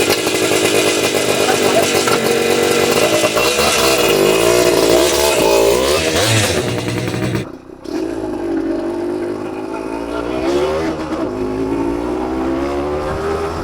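Freshly rebuilt 1991 Suzuki TSR 125's single-cylinder two-stroke engine running and being revved, its pitch rising and falling. About seven seconds in the sound dips briefly, then the engine runs on lower and steadier, near idle.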